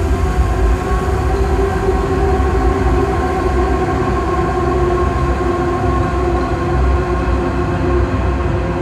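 Loud drone metal / ambient noise performance: a dense, unbroken wall of droning sound with a deep rumble underneath and several held tones above it, with no beat or breaks.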